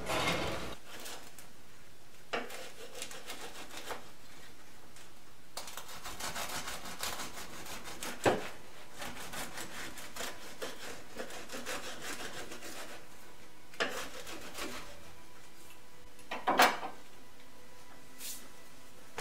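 Bread knife sawing back and forth through a crusty whole wheat loaf on a wooden cutting board, a long run of rasping strokes through the middle. Sharp knocks about 8 seconds in and near the end, the later one loudest.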